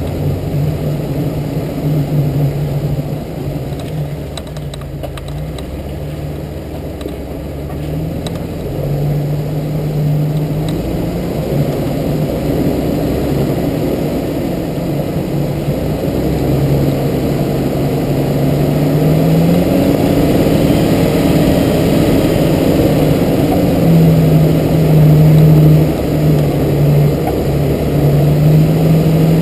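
Jeep TJ engine running as it drives along a dirt trail, its pitch rising and falling with the throttle and growing louder in the second half.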